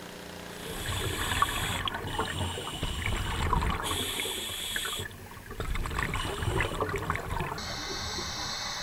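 Water bubbling and gurgling, rising about half a second in.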